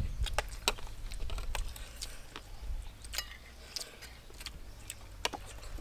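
Eating sounds: metal spoons clicking and scraping on plates along with chewing, a scattered run of sharp, irregular clicks.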